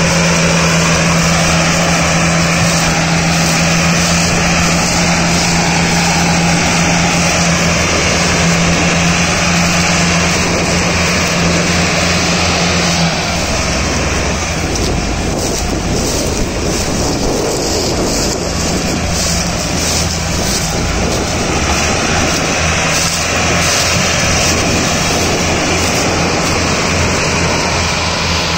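Massey Ferguson 385 tractor's diesel engine running hard under load, hauling a heavily loaded sugarcane trolley. A steady engine note holds for about the first half, then drops away and the sound turns lower and rougher.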